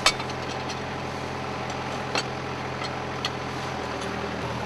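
Kubota compact tractor's diesel engine running steadily, its note shifting about four seconds in. A few short sharp clicks sound over it, the loudest right at the start and another about two seconds in.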